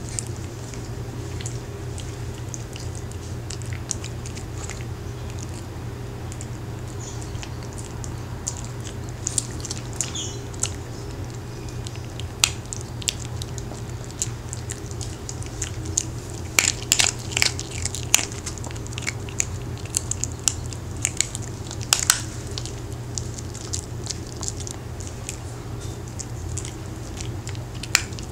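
A Maltese dog crunching and chewing hard homemade sweet potato dog cookies. Sharp crunches come in clusters from about nine seconds in and are busiest past the middle, over a steady low hum in the background.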